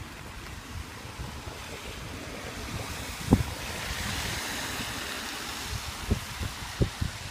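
Wind buffeting the microphone with irregular low thumps, and a gust hissing through the tree leaves that swells in the middle and dies away. No bell tones stand out.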